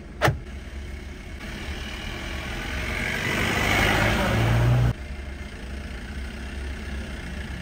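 Vehicle engine running, heard from a car: an off-road jeep draws up close behind, and the engine grows steadily louder for about four seconds. It drops abruptly about five seconds in. A single sharp click just after the start.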